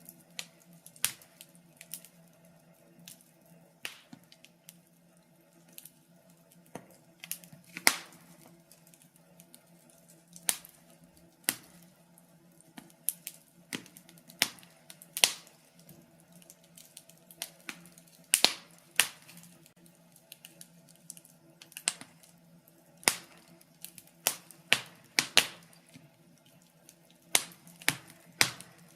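Wood fire crackling: irregular sharp pops and snaps of varying loudness, one to a few each second, over a faint steady low hum.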